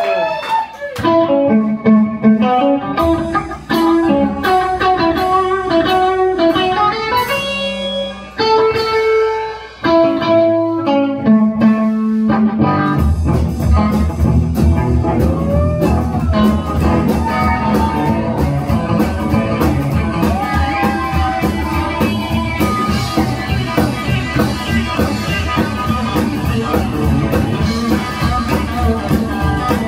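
Live band with a hollow-body electric guitar playing lead lines over upright bass. For the first dozen seconds the notes come in short separate phrases with gaps between them. About thirteen seconds in, the drums and full band come in with a steady driving beat.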